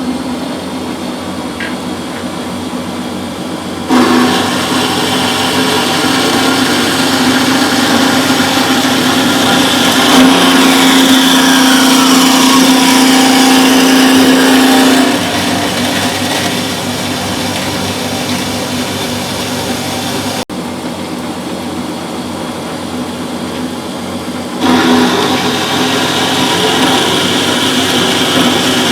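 Bernardo HBS 150 Z metal-cutting bandsaw running under power with a steady motor hum. It gets louder about four seconds in and again near the end, drops back partway through, and a whine falls in pitch midway.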